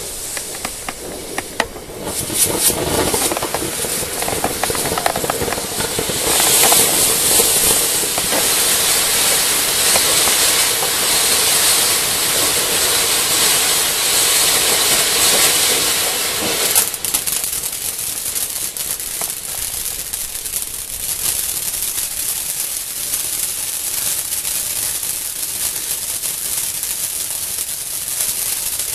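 Weco Laser ground firework fountains hissing as they spray sparks, with some crackling at first. The hiss swells louder about six seconds in, eases back after about ten seconds with a sharp crack, and then carries on steadily.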